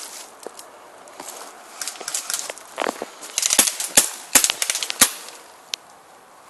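Airsoft guns firing: a scatter of sharp pops, single and in quick pairs, bunched between about three and five seconds in, over the rustle of movement through brush.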